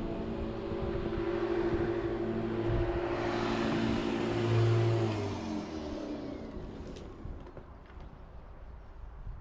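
A motor vehicle passing by: a steady engine note grows louder, is loudest about four to five seconds in, then drops in pitch and fades away.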